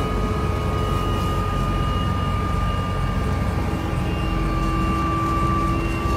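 Helicopter running, heard from inside its cabin: a steady whine made of several held tones over a low rumble.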